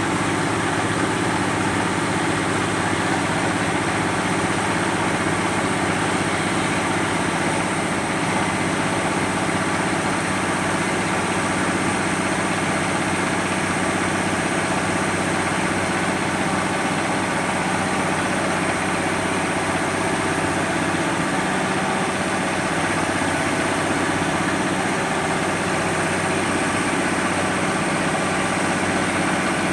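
Turbocharged truck engine fitted in a boat, running steadily at an even, unchanging pitch.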